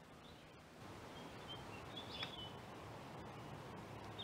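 A few short, high bird chirps, clustered about two seconds in and again at the end, over a steady low outdoor rushing noise that grows slightly about a second in.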